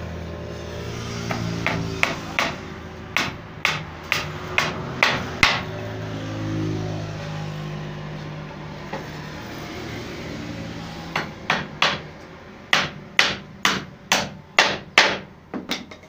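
Hammer blows nailing wooden planks together at the corner of a frame: a run of about ten sharp strikes, a pause of several seconds, then another run of about ten.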